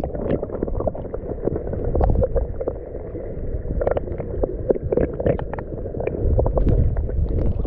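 River current heard through a submerged camera's microphone: a muffled low rumble and gurgle, with many small clicks and knocks scattered through it.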